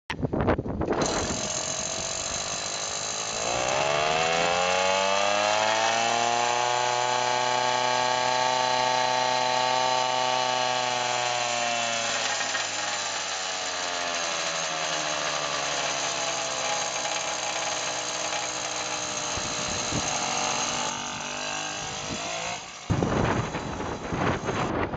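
Old Tomos moped's small two-stroke engine running: it starts up, rises to a high, steady pitch about three seconds in, and drops back to a lower speed. Near the end there is rough wind noise as the moped rides off.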